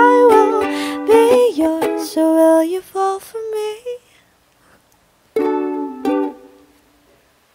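Ukulele and a woman's singing voice finishing the song's last phrase, then a pause and two final strummed ukulele chords about five and six seconds in, ringing out and fading to silence.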